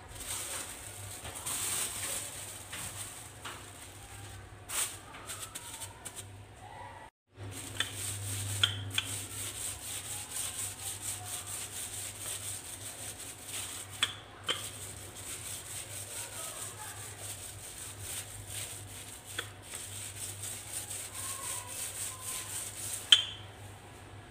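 Wooden rolling pin rolling biscuit dough between sheets of plastic: the plastic crinkles and rustles under the pin, with a few sharp clicks, the loudest near the end.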